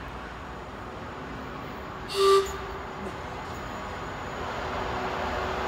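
A train sounding a short horn toot about two seconds in, over the rumble of the train that grows louder as it approaches.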